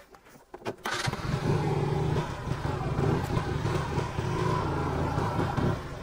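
Motorcycle engine starting up about a second in and then running steadily, falling off near the end.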